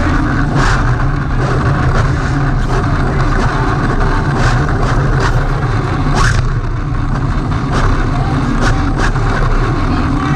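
Close-up running noise of a 3D-printed OpenRC radio-controlled car: a steady low rumble from its drivetrain and wheels on concrete, with sharp knocks several times.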